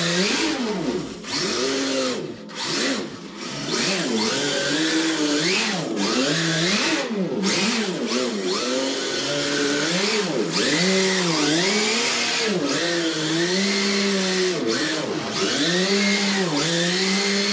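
RC drift car's electronic RB26 engine-sound unit, a simulated straight-six revving up and falling back over and over, about once a second or so, as the car is driven, over the electric whine of its brushless drive.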